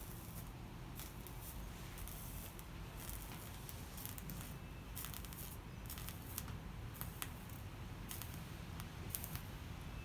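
Soldering iron working solder along the copper-foiled seams of a stained glass panel: faint, irregular crackling and ticking as the hot tip meets fluxed foil, over a low steady hum.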